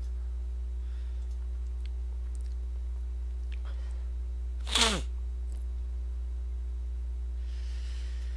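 A man's short, loud nonverbal vocal burst that falls in pitch, about five seconds in, and a fainter breathy exhale near the end, over a steady low electrical hum.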